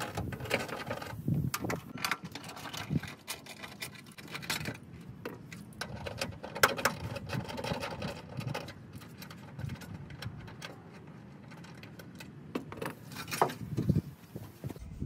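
Irregular clicking, rattling and rustling of hand work in a car trunk: a socket ratchet on 10 mm fasteners and plastic trunk trim being handled and pulled loose.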